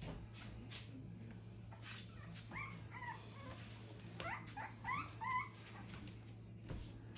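A dog whining: several short, high whimpers in two brief runs, the second about four seconds in.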